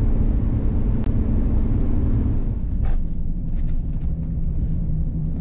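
Steady low rumble of a vehicle driving along the road, with a sharp click about a second in and a short hiss near three seconds.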